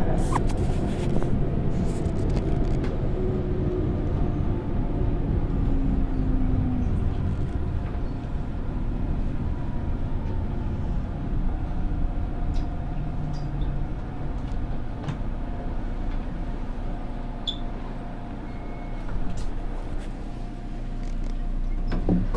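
Inside an electric commuter train slowing into a station: a steady rumble of wheels on rail with a motor whine that falls in pitch as it brakes, easing off as it comes to a stop near the end. A sharp knock at the very start is the loudest sound.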